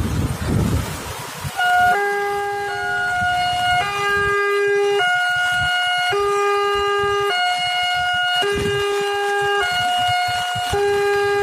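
Railway level-crossing electronic warning alarm sounding a repeating hi-lo pattern: two alternating tones, each held about a second, starting about a second and a half in. The alarm is automatic, switched on when an approaching train passes over the track's wheel sensor.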